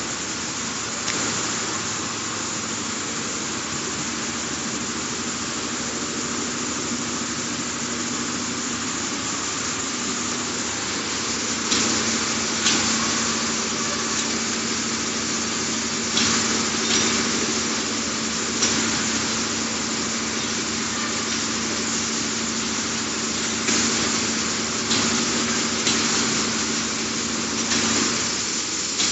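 Bottled-water production line running: conveyors and a high-speed sleeve labeling machine give a steady mechanical hum and hiss. Sharp clacks from the machinery come every few seconds from a bit under halfway through.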